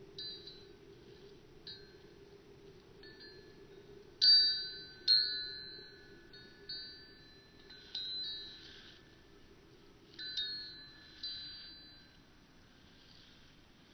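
Wind chimes ringing, struck at irregular moments about ten times, each strike a few bright metal tones ringing together and dying away; the two loudest strikes come close together near the middle.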